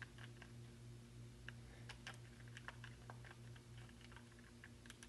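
Faint, irregular clicks of calculator keys being pressed, over a low steady hum.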